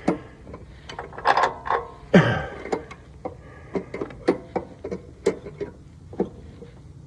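Irregular metallic clicks, clinks and knocks of a tension spring and bolt being handled and fitted into a zero-turn mower's drive-belt tensioner, some clinks ringing briefly, with a louder falling sound about two seconds in.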